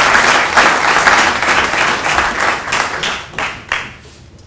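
Audience applauding, the applause thinning to a few last separate claps and dying away about four seconds in.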